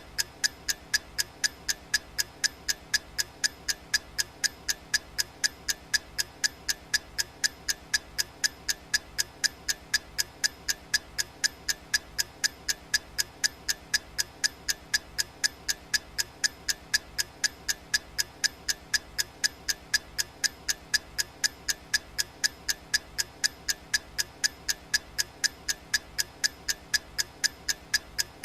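Clock ticking sound effect for a countdown timer: sharp, evenly spaced ticks with a bright ring, about two and a half a second, over a faint steady background.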